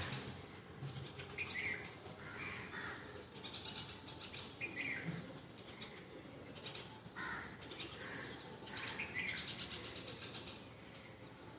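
Crows cawing repeatedly, one call every second or two, over a faint steady high whine.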